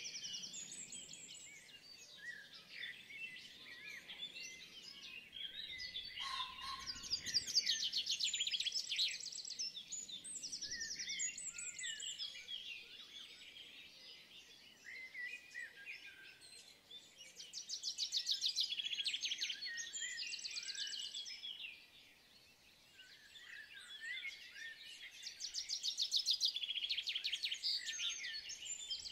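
Songbirds chirping and singing, with a loud, fast trilling phrase returning about every eight to ten seconds.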